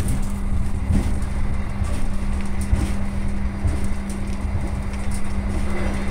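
Passenger train running on the rails, heard from inside the carriage: a steady low rumble with a constant hum and a few faint ticks.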